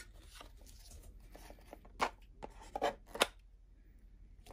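Scissors cutting the ribbon on a small gift box. There is faint rustling of handling, then three sharp snips about two to three seconds in, the last one the loudest.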